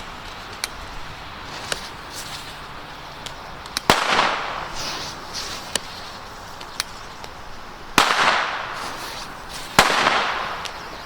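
Firecrackers going off: three loud bangs about four, eight and ten seconds in, each trailing off in a rolling echo, with several small sharp pops in between.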